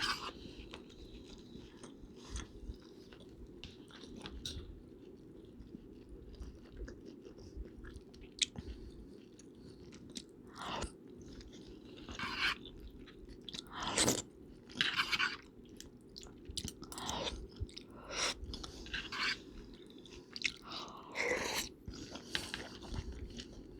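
Close-miked chewing and biting of food: irregular wet mouth noises and soft crunches spaced a second or two apart, over a steady low background hum.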